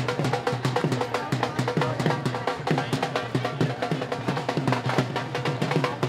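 Drums beaten by hand in a fast, steady rhythm, dense rapid strokes with deep thuds under them.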